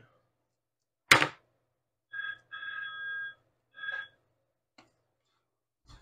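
A sharp click about a second in, then an electronic ringing tone in three short pulses, the middle one the longest, sounding two steady pitches together.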